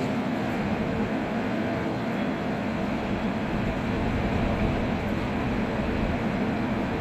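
A train at the platform making a steady, even rumble with a low hum.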